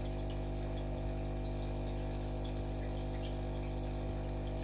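Aquarium pump running: a steady hum with water trickling and faint drips.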